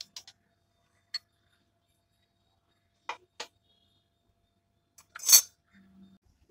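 A steel spoon clinking and scraping against a stainless steel cup as its contents are scraped into a ceramic bowl: a few short clicks, then two light taps about three seconds in. About five seconds in comes a louder, half-second scrape as the ceramic bowl is moved on the stone countertop.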